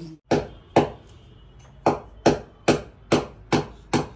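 A run of eight sharp smacks, two close together, then after a short pause six more at a steady pace of about two or three a second: blows landing on a bent-over person's body.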